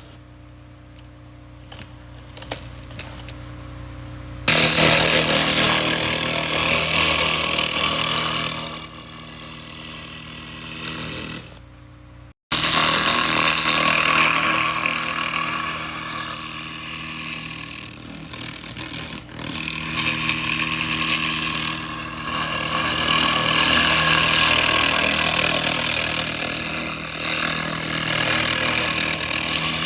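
Handheld laser rust remover blasting rust off metal: a loud crackling hiss that swells and fades as the beam sweeps across the surface, over a steady machine hum. The hiss starts about four seconds in and breaks off sharply just after twelve seconds before carrying on.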